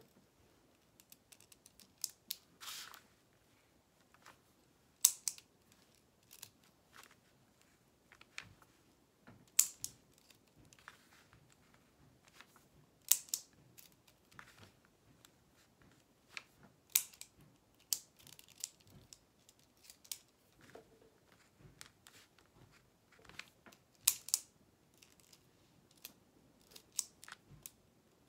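Irregular sharp clicks and light taps, one or two a second.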